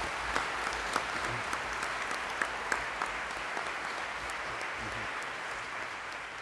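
Audience applause: many people clapping steadily, the clapping easing off slowly toward the end.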